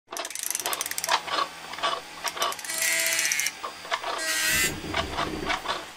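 Mechanical sound effects for an animated logo: a fast run of ratchet-like clicking, then scattered clicks and knocks and two short whirs, as of metal parts sliding and locking into place.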